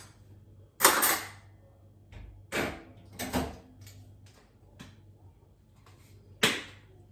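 Kitchen clean-up handling sounds: four short bursts of clatter and rustle as things are moved and put away. A faint low steady hum runs underneath.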